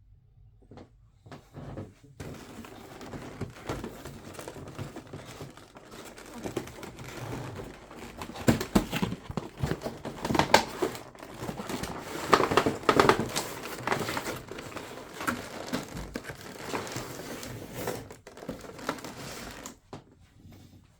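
Packaging of a model-aircraft box being unwrapped and handled: irregular crinkling and rustling with sharp crackles, starting about two seconds in and busiest around the middle.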